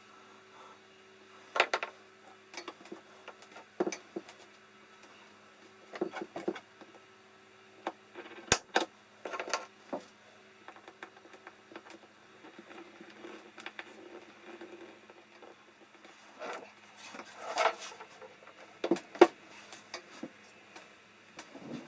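Intermittent clicks, taps and knocks of hand work on a tool chest and its small hardware, one sharp click a little before halfway and a busier stretch of knocks and handling near the end, over a faint steady hum.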